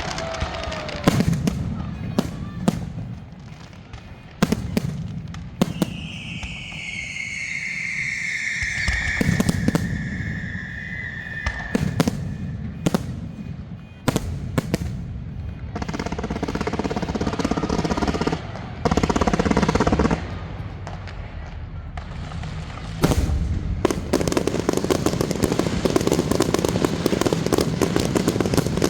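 Fireworks display: sharp bangs of shells launching and bursting, a long whistle falling in pitch, and stretches of dense crackling.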